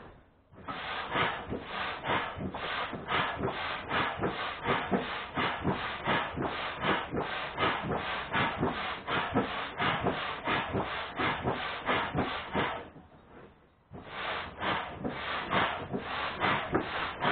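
Rhythmic rubbing strokes, about three a second, with a pause of about a second near the end.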